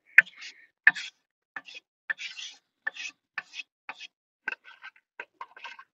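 A knife scraping and tapping diced celery and olives off a wooden cutting board into a bowl: a string of short knocks and scrapes, the sharpest clicks in the first second.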